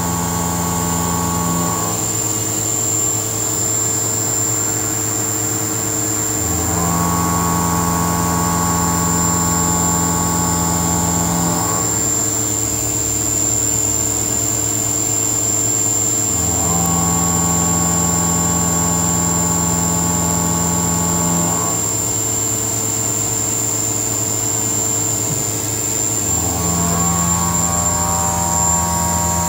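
CNC machining center face milling 303/304 stainless steel dry with an indexable-insert face mill: a steady machine hum under a constant high whine, with a pitched cutting tone that comes in for about five seconds and drops away for about five seconds, over and over, as the cutter makes pass after pass. The spindle is at about 17% load, well below the 27% at which the inserts would be due for changing.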